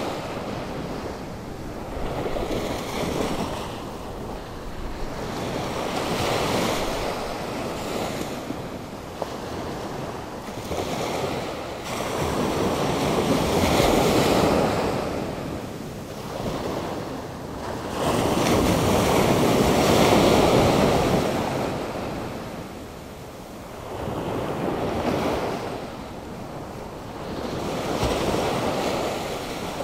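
Atlantic Ocean surf breaking and washing ashore in repeated surges every few seconds, a couple of them much louder than the rest. It is storm-driven surf stirred up by a hurricane.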